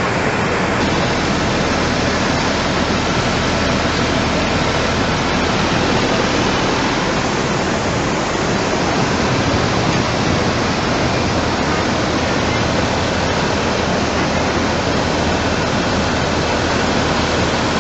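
Loud, steady rushing of a muddy flash-flood torrent carrying mud and debris.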